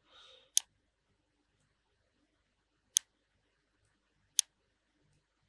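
Three single sharp clicks of a computer mouse, about half a second in, near three seconds and about four and a half seconds in, with quiet between them.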